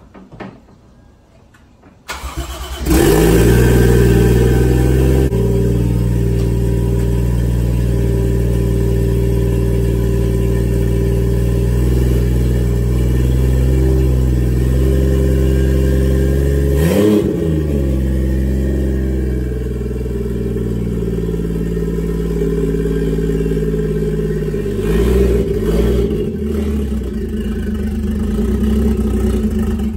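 A turbocharged 1JZ straight-six in a Lexus IS300 cranks and catches about two seconds in, then idles steadily. It gets a quick rev blip about halfway through and another short rise in revs near the end.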